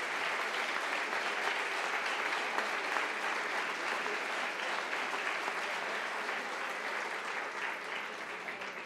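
Audience applauding, steady and then fading away in the last second.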